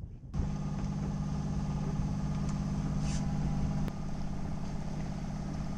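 Sailing yacht's inboard engine running steadily at low speed while motoring, a constant low hum with a slight drop in level about four seconds in.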